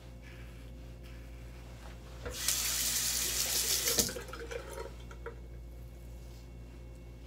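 Bathroom tap running for about a second and a half, rinsing a safety razor, turned on and off abruptly.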